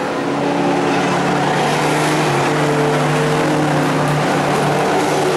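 Engines of race pickup trucks running under throttle on a dirt track: a loud, steady engine drone whose pitch stays fairly even.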